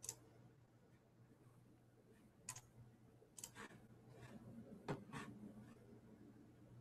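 Near silence in a small room: a faint steady hum with about six faint, short clicks scattered through it.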